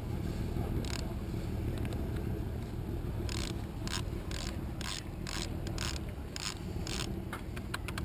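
Ratchet clicks from a sailboat electric winch's opened-up gear and pawl assembly as it is turned by hand during greasing: a single click about a second in, then a run of sharp clicks from about three seconds in, roughly two a second and quickening near the end. A steady low rumble sits underneath.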